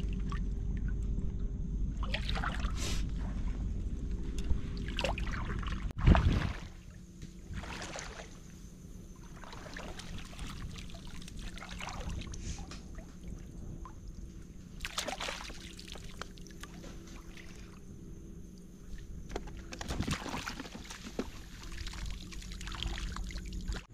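Wading in shallow seawater: irregular splashes and sloshing as feet and a scoop net move through the water. A steady low rumble fills the first six seconds or so and stops abruptly.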